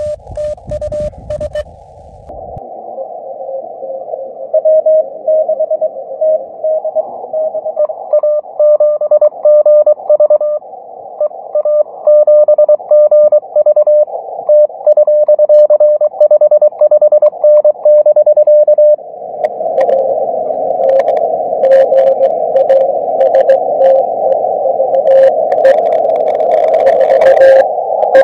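Morse code (CW) on an amateur radio transceiver: a single beep keyed in dots and dashes over band hiss, carrying a contact's call signs and signal reports (559, 449, 73). The hiss grows louder about two thirds in, with crackles near the end.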